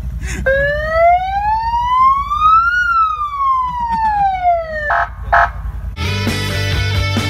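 Electronic siren tone in one slow wail, rising smoothly for about two seconds and falling back for two more, followed by two short blips. Rock music starts abruptly about six seconds in.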